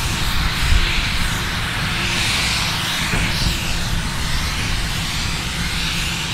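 Steam locomotive running: a steady hiss over a low rumble, with no distinct exhaust beats.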